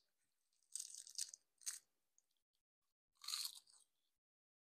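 Close-up crunching of food being bitten and chewed, a crisp seaweed-sheet wrap, in three short crackly bursts: about a second in, just before two seconds, and again a bit after three seconds.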